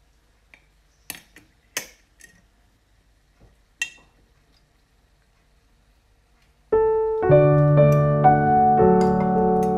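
A few light clicks and clinks in near quiet, then piano music begins about two-thirds of the way through and becomes the loudest sound.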